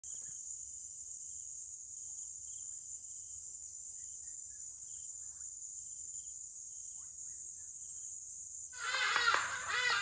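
Steady high-pitched chorus of insects with faint short chirps repeating. Near the end, a loud jumble of harsh bird calls starts abruptly over it.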